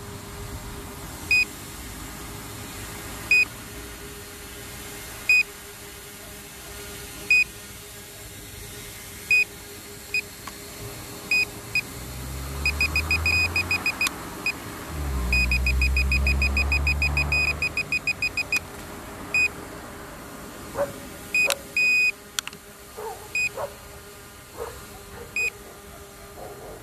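Short electronic beeps about every two seconds, then two runs of rapid beeping over a low rumble in the middle, with a few clicks and more beeps near the end.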